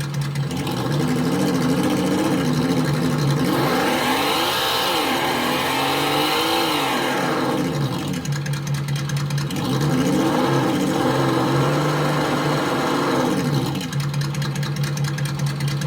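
Simulated engine sound from an ESS Dual+ RC sound unit, on its second sound mode, played through its speaker: a steady idle that revs up and back down twice as the throttle is worked, then settles back to idle near the end.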